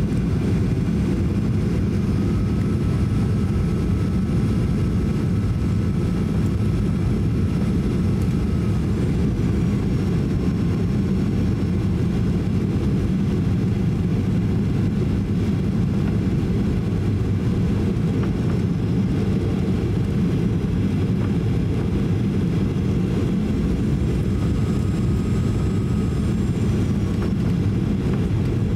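Cabin noise inside a Boeing 737-800 on final approach: a steady low rush of airflow and engine noise. Faint whining tones come in a couple of seconds in and again near the end, each dipping in pitch as it fades.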